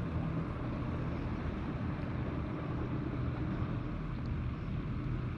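A distant engine humming steadily over a constant hiss, with no change in pitch or level.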